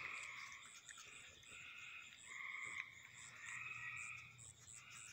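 Faint night chorus of frogs trilling in long, overlapping calls, with a fainter high chirp repeating about twice a second.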